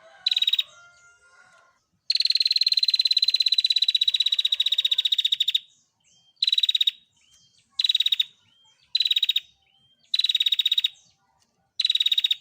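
Female prenjak (prinia) giving its 'tir' trill: a very fast, high rattle, first a long one of about three and a half seconds, then a string of short bursts about a second apart. Faint small chirps sound between the bursts.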